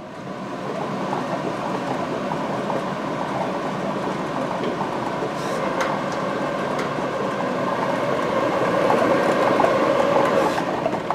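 Air-mix lottery ball machines running: air rushing through two clear plastic chambers and numbered balls rattling and clattering against the walls. The sound grows louder toward the end and drops off sharply about ten and a half seconds in.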